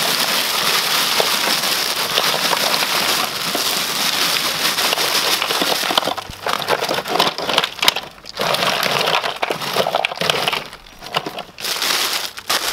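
Bagged ice cubes pouring and clattering into a plastic cooler over live blue crabs, with the plastic ice bag crinkling. A steady rattle for about six seconds, then shorter bursts as the bag is shaken out.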